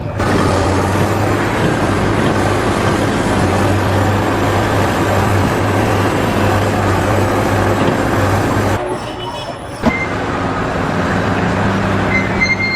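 A large engine running, with a steady low hum under loud mechanical noise. It cuts off suddenly about nine seconds in, giving way to a quieter stretch with a click and a few short high-pitched tones.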